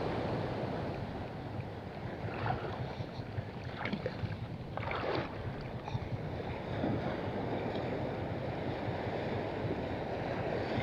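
Shallow sea water washing along the shore with wind on the microphone, a steady rushing noise. A few brief, slightly louder sounds stand out about two and a half, four and five seconds in.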